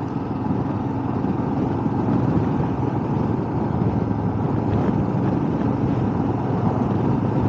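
Motorcycle under way: a steady engine drone mixed with road and wind noise.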